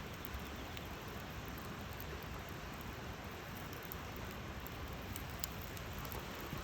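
Campfire burning: a steady hiss of flames with a few faint, sparse crackles.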